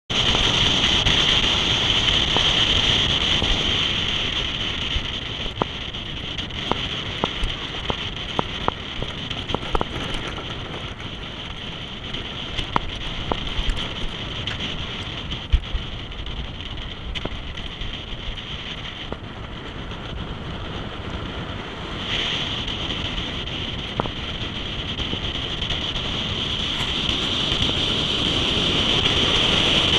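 A vehicle driving a gravel dirt road, heard through heavy wind rushing over an outside-mounted camera microphone, with tyre and road noise. Scattered sharp clicks and knocks come through, most of them in the first half. The steady high hiss dips for a few seconds about two-thirds through, then returns.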